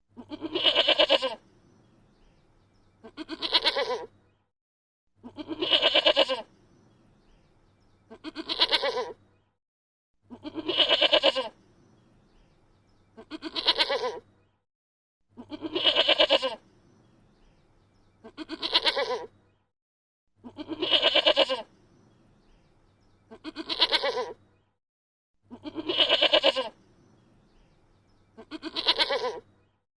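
A goat bleating: pairs of drawn-out bleats about a second long, the pairs repeating evenly every five seconds or so, about a dozen calls in all.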